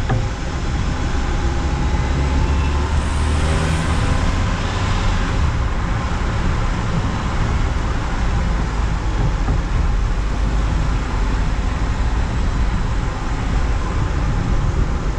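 Open-top Moke car on the move: steady engine and tyre noise under heavy wind rushing over the microphone of a 360 camera held on a pole above the car. A louder hiss swells and fades a few seconds in.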